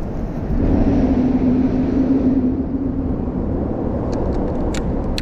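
Vehicle traffic on the bridge overhead: a steady low rumble, with a hum that swells about half a second in and fades away by the middle. A few light clicks come near the end.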